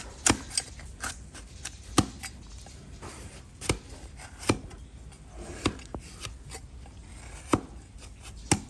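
A hoof-trimming blade slicing through donkey hoof horn, each cut a sharp crack, about nine in all at irregular intervals roughly a second apart.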